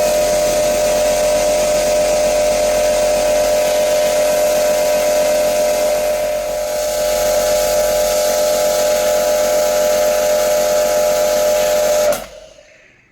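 Pressure-washing machine running with a steady whine while its water jet hisses, washing an air conditioner; it cuts off suddenly about a second before the end.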